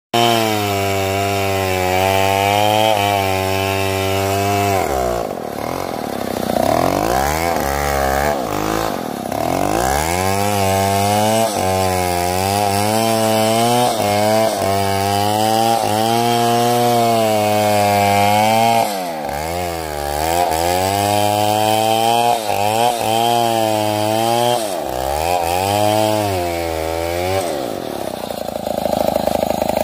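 A big two-stroke Stihl MS070 chainsaw cutting through sengon wood. Its engine speed sags under load several times and picks back up.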